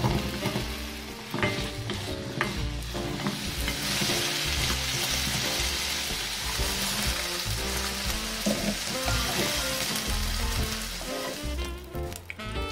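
Potato and carrot chunks sizzling in hot oil in a nonstick wok, the sizzle swelling about three and a half seconds in and easing near the end. A few sharp knocks in the first seconds as carrot pieces drop into the pan.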